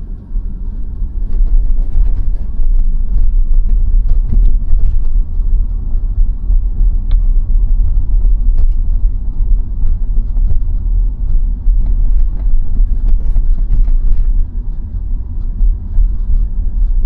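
Low road and tyre rumble inside the cabin of a 2021 Tesla Model Y, an electric car with no engine note, as it pulls away and drives along a town street. The rumble swells about a second in and then holds steady.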